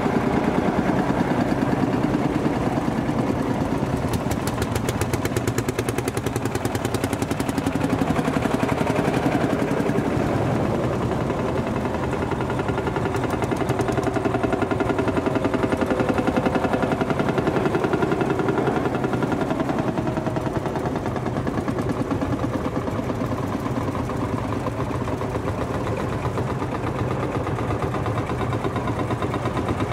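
Vintage Marshall tractors' single-cylinder two-stroke diesel engines running, a steady rapid thumping beat throughout.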